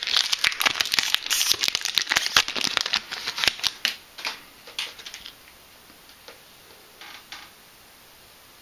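Foil Yu-Gi-Oh booster pack wrapper crinkling and cards being handled: dense rapid crackling and clicking for about four seconds, then a few scattered soft clicks.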